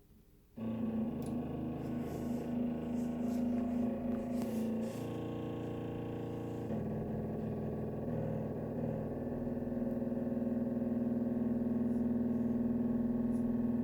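Thermostatic radiator valve humming: a steady, pitched drone with overtones that starts about half a second in and shifts pitch slightly twice. It is the sign of the valve being partly closed by its warmed thermostatic head, so that the water flow through the narrowed gap sets it humming; the hum lasts until the valve closes fully.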